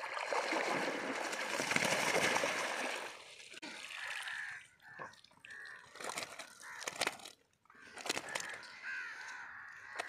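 Water splashing and sloshing as a mesh net holding a carp is hauled out of the shallows, loudest in the first three seconds. After that come scattered clicks and rustles as the wet net is handled.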